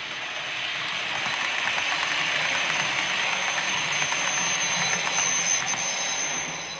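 Bachmann Blue Pullman OO-gauge model train running on the layout track: a steady rushing of motor and wheels on rail that grows louder over the first couple of seconds and drops away near the end. A thin high-pitched whine comes through, loudest around five seconds in, from the rear power car's dry motor bearing.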